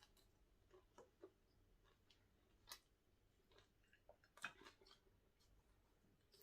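Faint chewing and mouth sounds of a person eating: a few scattered soft clicks over near silence, the loudest about four and a half seconds in.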